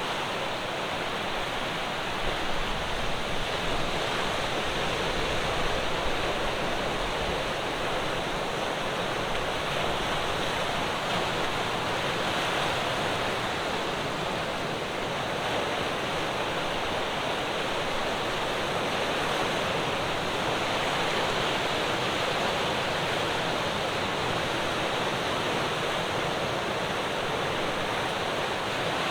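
Ocean surf breaking and washing on the shore: a continuous rushing hiss that swells slightly a few seconds in.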